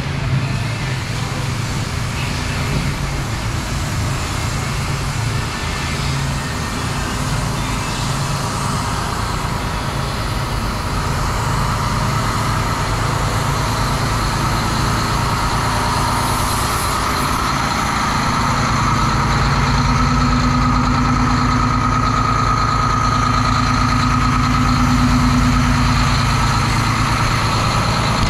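Truck diesel engine running steadily. It gets louder about two-thirds of the way in, with a steady whine over the engine note.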